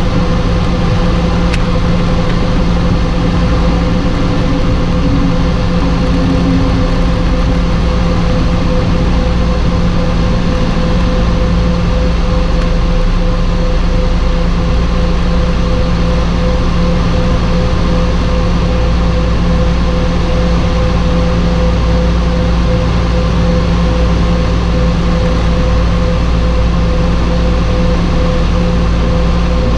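The Turbo Commander 690B's twin Garrett Dash-10 turboprop engines running during the landing rollout: a loud, steady drone with a held tone that does not change through the roll.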